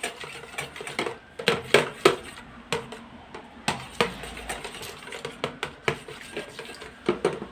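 Wire whisk beating raw eggs in a clear plastic container, its wires clicking and tapping against the sides and bottom at an irregular pace of a few strokes a second.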